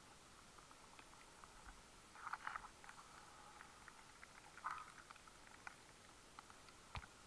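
Faint scattered clicks and crackles picked up underwater over a low hiss. There are two short spells of crackling, about two and four and a half seconds in, and a single sharp click near the end.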